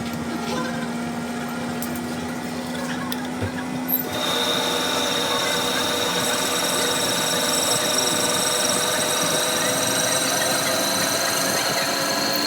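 Lathe running with a steady hum; about four seconds in, after a brief click, it grows louder and a high-pitched whine joins and holds.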